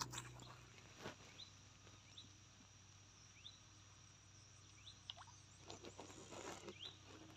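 Near silence: faint outdoor ambience with a thin steady high hum and a handful of short, faint rising chirps spaced a second or so apart, plus a few soft clicks in the second half.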